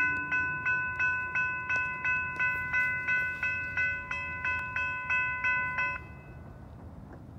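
Railroad grade-crossing warning bell ringing about three strikes a second as a train approaches, each strike fading quickly. The bell stops suddenly about six seconds in, leaving a low steady rumble underneath.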